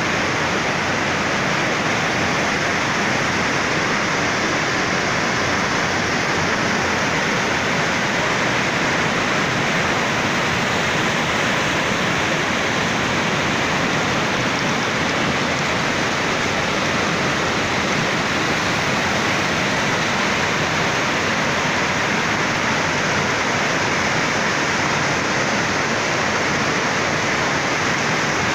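Heavy rain: a steady, even rush of noise with no let-up.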